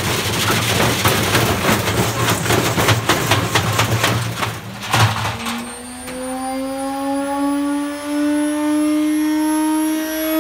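Indesit W133 front-loading washing machine spinning with two bricks in its drum: loud, rapid banging and clattering as the bricks and drum slam around. The banging stops sharply about five seconds in, leaving a steady motor whine that slowly rises in pitch as the drum speeds up.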